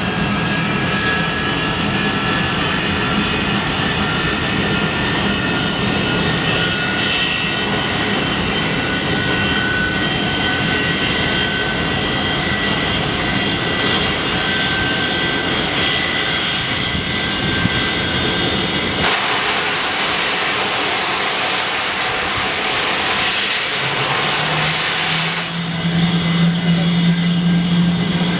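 English Electric Lightning's Rolls-Royce Avon jet engines running, with a high whine of several tones over a steady rumble. About two-thirds through, a rushing noise takes over for a few seconds, and a strong low hum comes in near the end.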